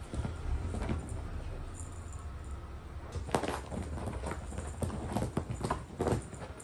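A cat's paws thudding and scrabbling on sofa cushions as it leaps and pounces during play: a run of irregular thumps, the loudest a little over three seconds in.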